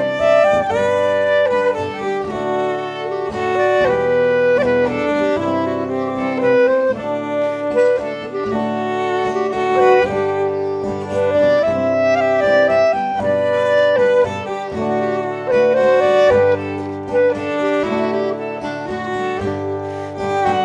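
Live instrumental folk tune played by a trio: a clarinet and a fiddle carry the melody over a strummed acoustic guitar.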